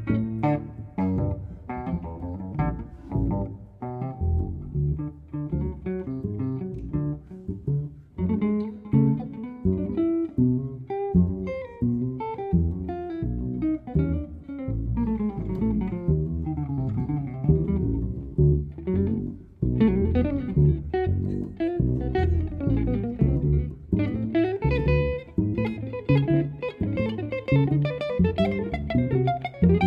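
Live jazz duo: an amplified archtop guitar plays quick plucked melodic lines over an upright double bass.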